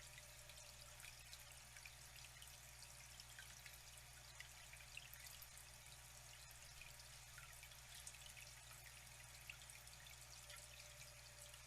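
Faint flowing water trickling, with many small drips and splashes, over a steady low hum.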